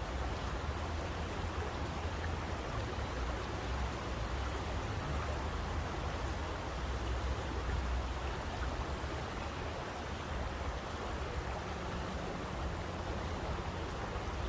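Steady, even rushing of water, a continuous hiss with a deep rumble underneath and no separate drops or splashes standing out.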